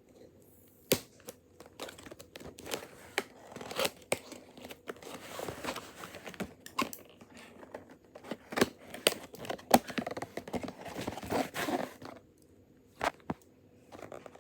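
A toy's packaging box being opened by hand from the side: irregular tearing and crinkling with sharp snaps, pausing briefly near the end before a couple more snaps.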